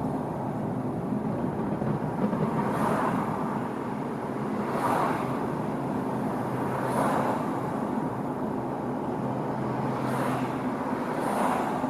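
Road traffic: a steady hum with cars passing one after another, each swelling and fading over about a second, every couple of seconds.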